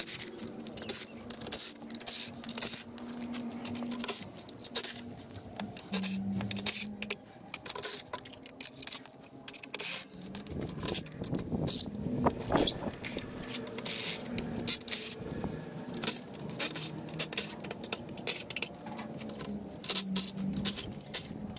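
Cordless drill running in short spurts to back out the bolts holding a pot mould together, with metal bolts clicking and clinking as they come loose and drop onto the concrete ground.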